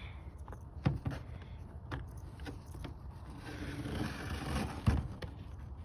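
Handling noise: a few sharp knocks, with a rough scraping stretch about three to almost five seconds in.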